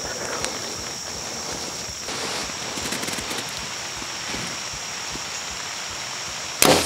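Steady high, even buzz of an insect chorus in summer woods. Near the end, a sudden loud sharp crack, the shot of a Mathews V3X compound bow being loosed at a buck.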